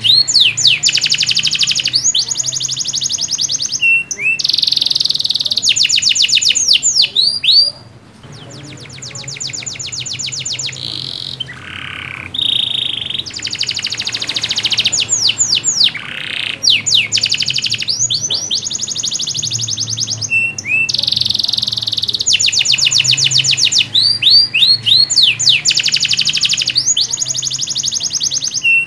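Domestic canary singing a long, energetic song of rapid rolling trills and quick rising and falling notes. The song thins out and quietens about eight seconds in, then the full trills resume.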